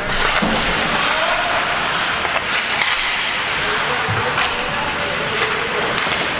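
Ice hockey play in an echoing rink: a steady hiss of skates on the ice, broken several times by sharp clacks and thuds of sticks, puck and boards.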